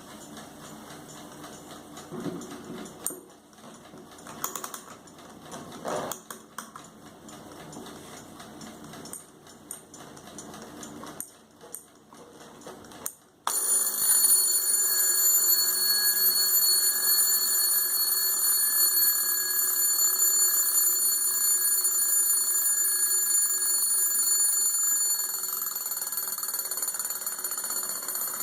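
Blessing alarm clock: a few faint clicks and knocks, then about halfway through its alarm starts suddenly and rings steadily at a high pitch, easing a little near the end.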